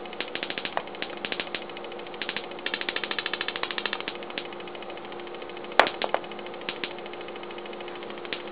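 High-voltage sparks from an automotive ignition coil, switched by a 555 timer circuit, snapping across the gap between two aluminium cans. They come as irregular clusters of sharp ticking clicks, with a fast run of about a dozen a second around three seconds in and one much louder crack about six seconds in.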